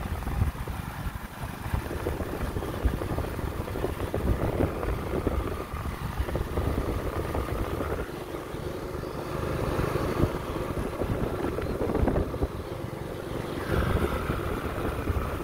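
Wind buffeting the microphone over the running of small motor scooter engines on the move.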